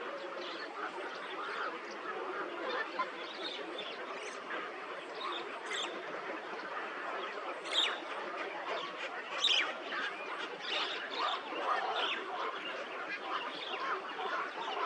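A flock of birds calling and chattering together, many short calls overlapping into a steady din, with a few sharper high calls standing out about six, eight and nine and a half seconds in.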